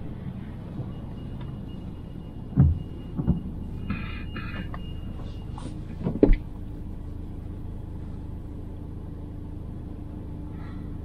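Ford Focus ST Mk4's engine running with a steady low rumble while driving. Sharp knocks break in about two and a half seconds, a little after three seconds and about six seconds in.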